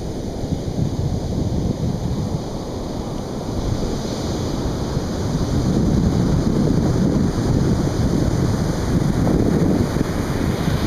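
Atlantic Ocean surf breaking and washing on a beach, a continuous rushing wash that swells louder about halfway through, with wind buffeting the microphone.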